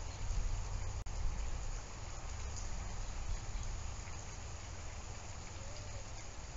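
Steady outdoor background noise: an even hiss with a low, uneven rumble, broken by a brief audio dropout about a second in.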